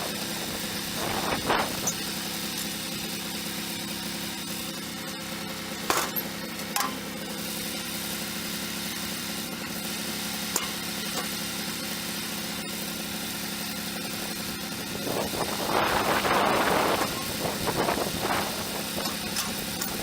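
Wood-Mizer band sawmill's engine running steadily, with a few short knocks and a louder rushing noise for a couple of seconds near the end.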